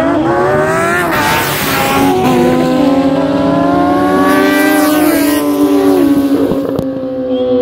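Drag-racing motorcycle launching off the start line and accelerating hard. Its engine pitch climbs and falls back at each upshift in the first two seconds, then settles into a steadier engine note.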